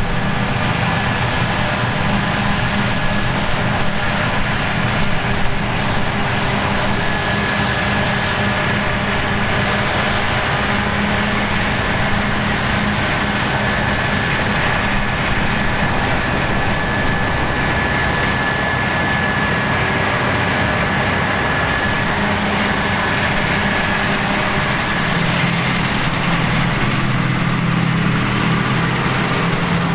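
Claas Lexion 780 TT combine harvester working grain: a steady engine drone with a thin high whine running over it.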